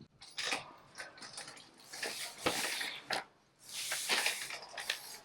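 A heavy flat-pack furniture box being shifted and loaded onto a warehouse cart: a series of sharp knocks and clicks with scraping and rattling between them.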